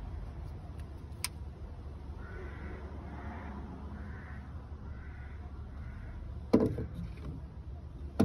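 Steady low hum with a bird cawing faintly about five times, roughly once a second, then a single sharp knock about six and a half seconds in.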